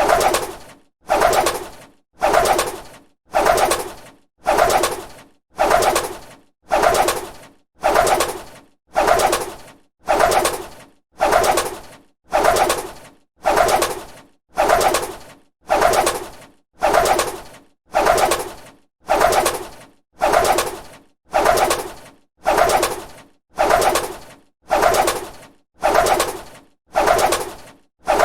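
A bird's wings flapping in short bursts, each starting sharply and fading, repeated at an even pace of a little under one a second.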